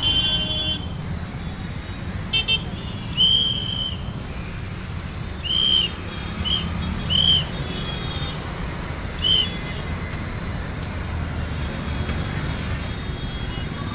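A traffic whistle blown in about seven short, high blasts, scattered irregularly, over the steady rumble of passing traffic.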